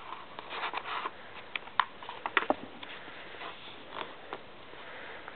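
A sheet of A4 paper being handled, folded in half and creased, giving scattered soft rustles and short crisp ticks.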